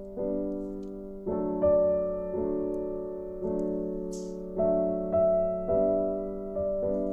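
Background music: slow solo piano, a new note or chord about every second, each dying away.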